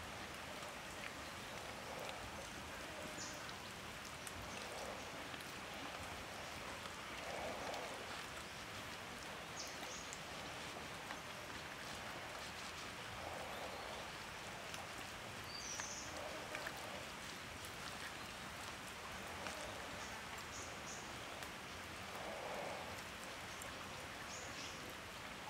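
Quiet outdoor ambience: a steady hiss with a few short high chirps. Now and then there is a soft rustle as a banana leaf is handled and folded.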